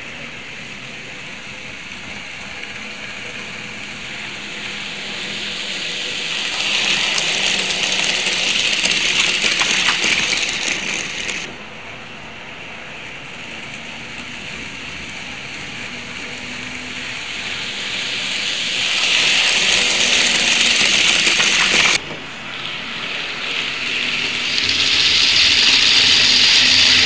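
N scale model trains running on the layout track close to a rail-level microphone: a steady, high-pitched mechanical running noise of small motors and wheels on rail. It grows louder as each train comes near, is loudest as one passes right by near the end, and twice drops suddenly and builds again.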